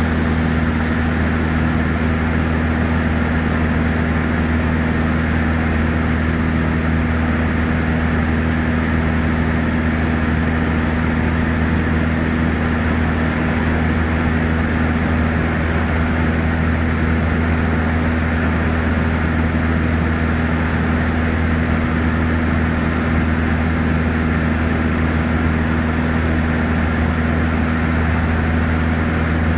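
A Cessna 152's four-cylinder Lycoming O-235 engine and propeller droning steadily in cruise, heard inside the cabin with airflow noise. The pitch and loudness stay even throughout.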